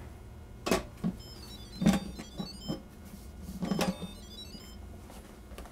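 Instant Pot pressure cooker lid being set on and turned into place: a few knocks and scrapes of the lid against the pot rim. About halfway through, the cooker gives a short electronic jingle of quick high tones as its display comes on.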